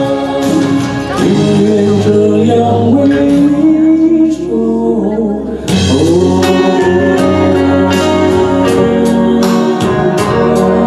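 A man singing a Mandarin love song into a microphone over instrumental accompaniment with a steady beat, holding long notes between phrases.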